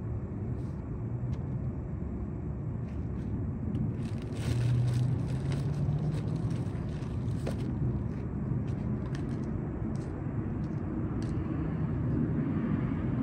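Low, steady rumble of road traffic, with a vehicle passing louder from about four seconds in for a few seconds.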